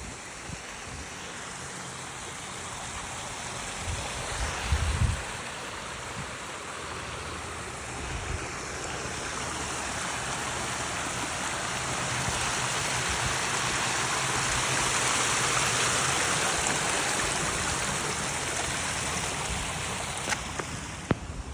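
Water rushing over a waterfall into a river: a steady rushing that grows louder toward the middle and eases near the end, with a few low bumps about five seconds in.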